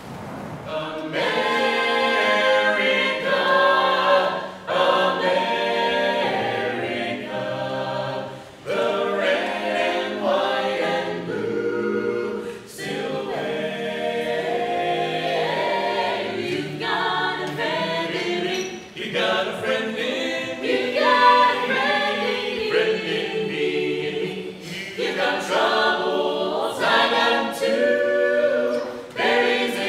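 An a cappella vocal ensemble singing in multi-part harmony, unaccompanied and unamplified, in several sung phrases with brief pauses between them.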